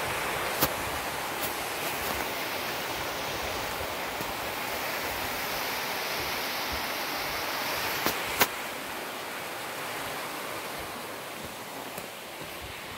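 Steady rushing of water, with a few sharp clicks about half a second in and twice around eight seconds in.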